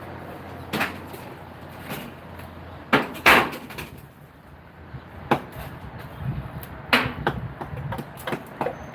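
Irregular sharp knocks and clanks of a steel crowbar worked against heavy stone blocks, the loudest two close together about three seconds in, with more quick knocks near the end.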